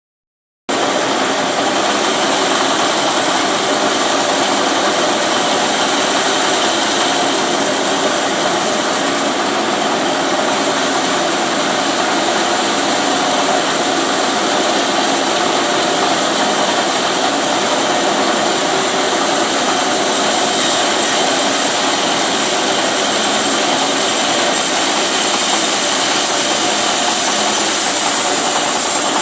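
Gasoline-engine-driven saw running steadily with a loud, hissing drone, growing somewhat louder about two-thirds of the way through.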